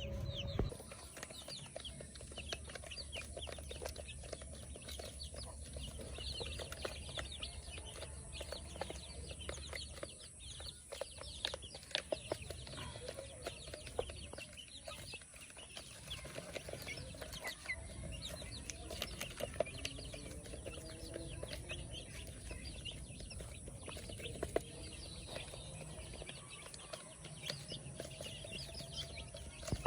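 Chickens clucking and calling, mixed with many small scattered clicks and scratches.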